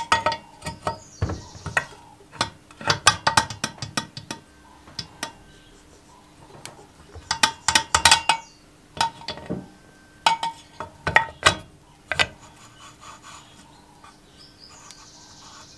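Sharp metallic clicks and clinks in irregular clusters, with quiet gaps between, as the camshaft and its gear are handled and set into a Briggs & Stratton engine's aluminium crankcase.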